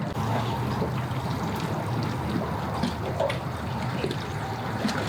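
Water trickling and splashing at the ramp, over a steady low engine hum.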